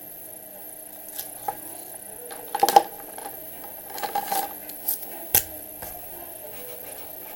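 Handling noise: a scattering of short taps and knocks, with a loud cluster about two and a half seconds in, another about four seconds in, and a single sharp knock a little after five seconds, over a faint steady background.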